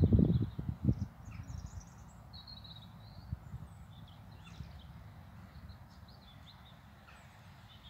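Small songbirds chirping and trilling in short high phrases. A low rumbling buffeting, like wind or handling on the microphone, is loudest in the first second and then dies away.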